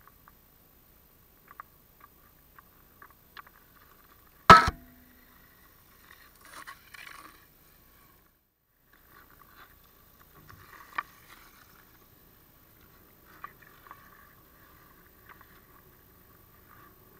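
Ice hockey sounds on lake ice: one loud sharp knock about four and a half seconds in with a short ring, then skate blades scraping on the ice close by and a sharper click around eleven seconds, amid faint scattered ticks.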